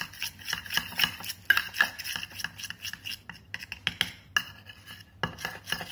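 Metal spoon stirring and scraping inside a small stainless steel bowl, clinking against its sides several times a second with a few brief pauses, as crushed powder blush is mixed into glycerin to make a paste.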